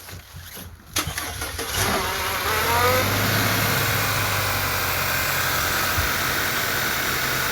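Car engine cranked by the starter and catching on the first try about a second in, its pitch rising briefly as it picks up, then settling into a steady idle after an oxygen sensor replacement.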